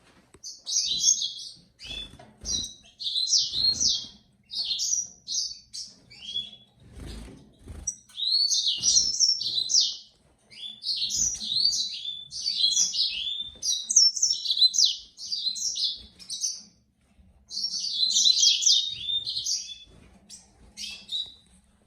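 A caged singing finch singing in repeated bursts of rapid, high twittering and warbling phrases, with brief pauses between bursts. A few faint low thumps come in the first third.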